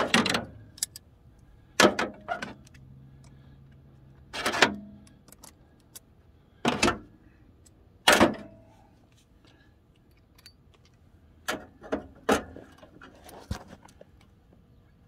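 Steel sockets clinking against each other and the plastic case as they are picked through in a socket organizer: about nine or ten separate sharp clatters, several of them close together near the end.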